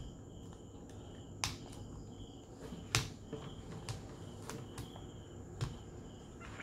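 Small plastic surprise-egg capsule clicking as it is pried and twisted by hand to open it: half a dozen sharp, scattered clicks, the loudest about three seconds in. A faint high chirp comes and goes behind it.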